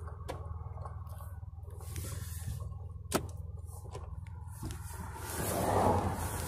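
Low steady hum of a car's engine running, heard inside the cabin, with a few sharp clicks and the rubbing of a phone being handled against the seat fabric; a rushing noise builds near the end.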